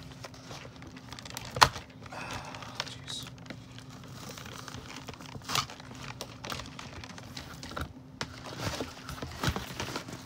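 Clear plastic blister tray being handled and pried at: crinkling with scattered sharp plastic clicks and snaps, the loudest about a second and a half in.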